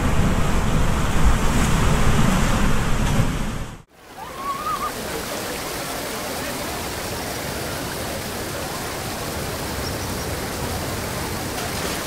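Ocean waves breaking and washing onto a beach, with a heavy low rumble, cutting off suddenly about four seconds in. A steady, even rush of water follows, with one brief high wavering call just after the cut.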